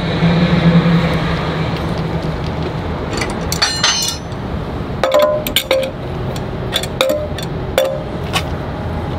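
Metal clinking as a wrench and bolts knock against the steel Gen-Y goose box being bolted to a fifth-wheel trailer: a quick run of clinks about three and a half seconds in, then four separate ringing clinks. A truck engine hums under the first few seconds.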